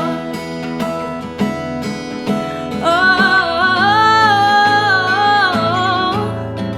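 Guitar picking, joined about three seconds in by a woman's voice holding one long sung note with vibrato over the accompaniment.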